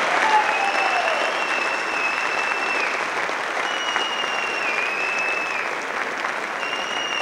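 Audience applauding steadily. Long, high, shrill whistles from the crowd ring over it three times, each holding one pitch for a second or two before dropping off.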